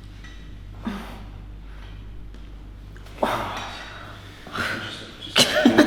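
A person's forceful exhales and gasping breaths as a chiropractic adjustment is made: two breathy rushes of air, each fading over about a second, then a louder burst near the end that turns into a laugh.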